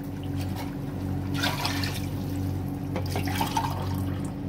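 Water being poured into a pot of browned chicken, splashing into the liquid in a few pours over a steady low hum.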